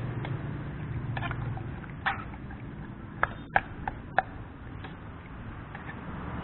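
Metal spoon scooping tapioca pearls out of a stainless steel pot, clinking sharply against the pot several times, mostly around the middle.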